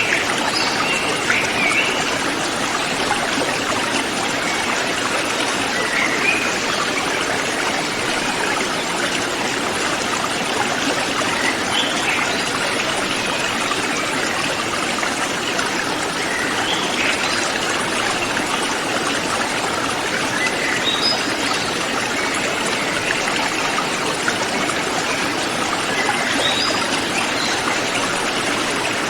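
River stream flowing with a steady rushing. Short, high bird chirps come through it every few seconds.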